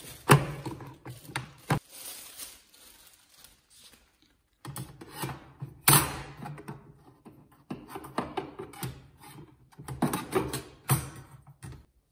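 Parts of a Breville (Sage) Barista Express espresso machine being handled, knocking, clicking and rubbing around the drip tray and bean hopper. There is a short silent gap about four seconds in, the loudest knock about six seconds in, and a quick run of clicks near the end.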